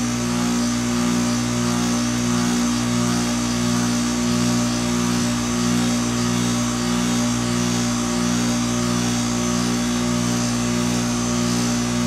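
2008 Goodman packaged heat pump running in its defrost cycle: a steady compressor hum with a slight regular pulsing, while the outdoor fan is off and its blades only turn in the wind.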